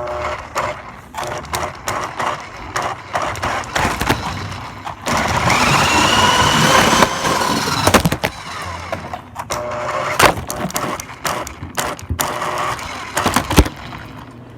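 RC car running fast over bumps, with repeated clattering knocks as it hits and lands. About halfway through, its motor whine rises and then falls.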